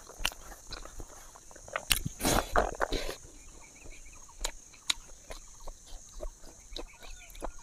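Close-up eating sounds: chewing and lip smacks, with fingers working rice on a banana leaf, as a string of short clicks and smacks and a brief louder rustle about two seconds in. A faint steady high hiss sits behind.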